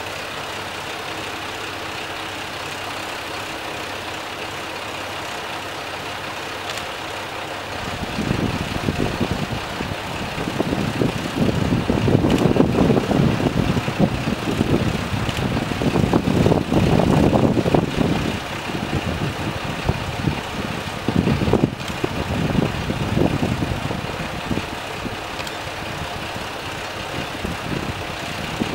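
Diesel railcars of a Sanriku Railway 36-R3 and 36-700 train idling with a steady engine hum. About eight seconds in, a louder, uneven rumble joins and rises and falls.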